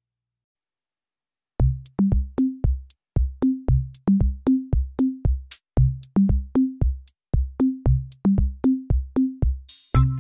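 Background music: after about a second and a half of silence, a drum-machine beat starts, about three strokes a second, with low bass notes stepping between a few pitches and a short cymbal-like swell near the end.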